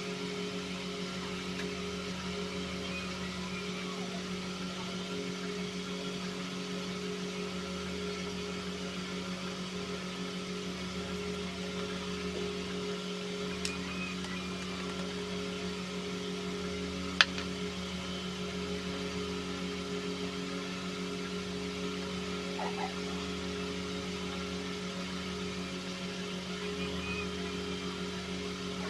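A steady low mechanical hum, like a small motor or fan, runs throughout. About halfway through come two sharp clicks a few seconds apart, the second louder.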